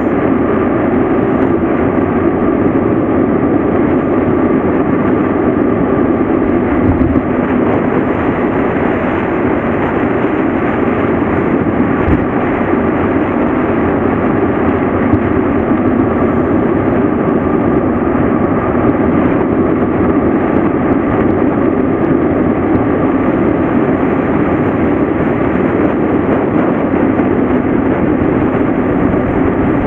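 Steady rush of wind over the microphone, mixed with tyre noise, as a mountain bike runs fast downhill on a paved road.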